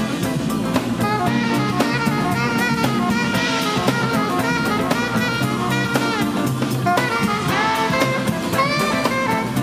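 A soul-jazz band playing live: an alto saxophone solo with bending, sliding notes over a steady drum-kit groove.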